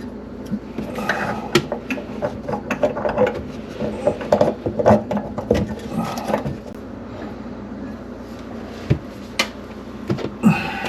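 Tools and metal or plastic fittings being handled: irregular knocks, clicks and short clatters, with the busiest stretch in the first half and another burst near the end.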